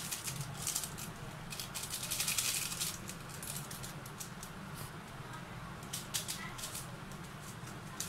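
Crinkling and rustling of a Maggi masala seasoning sachet as it is torn open and shaken out over noodles in a pan. The rustling comes in short bursts, busiest in the first three seconds, with a few sharp clicks later on.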